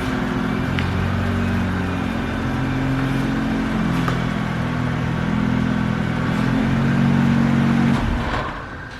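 Car engine running, a steady low hum whose tones shift now and then, fading out near the end.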